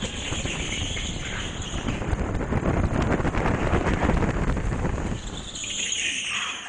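Indoor go-kart driving at speed, heard from the driver's seat: a continuous mix of kart engine and tyre noise. A higher, hissing squeal grows stronger near the end as the kart turns.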